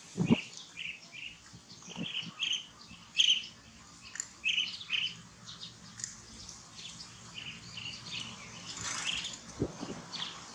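Many short, high-pitched chirps in quick succession, from small animals. There is a low thump just after the start and another near the end.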